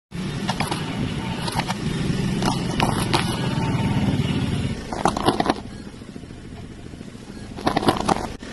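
A car's engine runs low and steady as its tyre rolls over cucumbers on asphalt, crushing them with a few sharp cracks. About five seconds in there is a louder burst of crunching, and another comes near the end.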